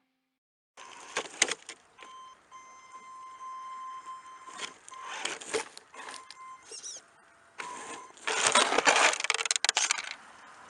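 1:10-scale RC off-road car with an electric motor, driving in bursts: a steady motor whine under rattling and crunching from the plastic chassis and wheels on rough ground, loudest about eight to ten seconds in.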